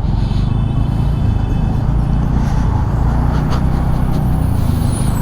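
Motorcycle engine running at steady speed in road traffic, a continuous low rumble with rushing air noise.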